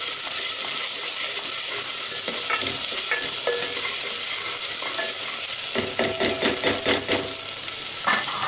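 Diced onions and capsicum sizzling in hot oil in a non-stick pot while being stirred, the utensil scraping and knocking against the pan. A quick run of strokes comes a little after halfway through.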